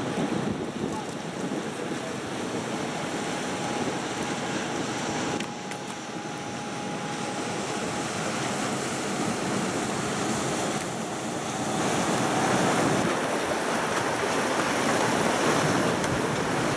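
Harbour water lapping and wind buffeting the microphone, a steady rushing noise that grows louder about twelve seconds in.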